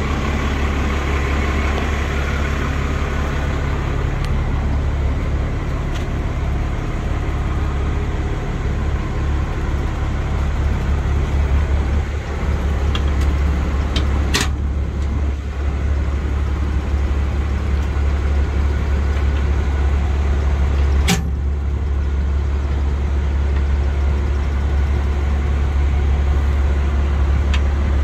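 Fire truck's Cummins diesel engine idling steadily. A storage-compartment latch and panel give two sharp clicks, about halfway through and again about three-quarters of the way through.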